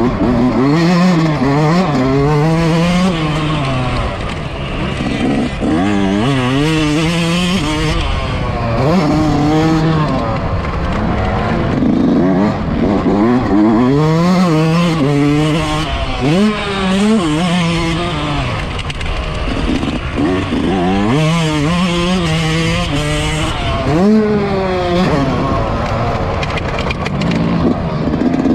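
Yamaha YZ125's single-cylinder two-stroke engine being ridden hard on a dirt motocross track, its pitch climbing in runs of quick rising revs through the gears and dropping back off the throttle, over and over.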